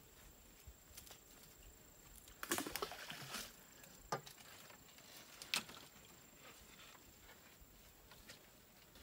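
Quiet outdoor background with a few scattered light rustles and knocks from a person moving about: a short cluster of crackly strokes, then two single sharp ticks.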